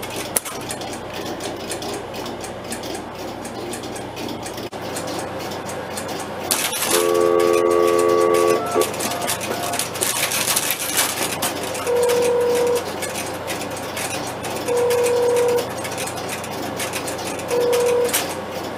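Telephone ringback tone from a 1971 Fujitsu crossbar PBX, heard as short steady beeps about every three seconds, with the crossbar switch's relays clicking and clattering. About seven seconds in, a louder tone of several pitches together sounds for about two seconds.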